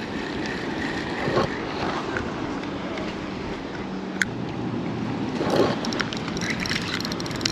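Wind buffeting the microphone over open water, with a couple of brief handling bumps. Near the end comes a run of fine ticks from the spinning reel as it is handled.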